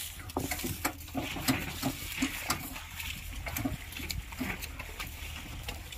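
Bullock cart rolling over dry sugarcane trash on soft, wet ground: irregular clicks, knocks and rattles from the cart's steel frame and wheel, over a steady low rumble.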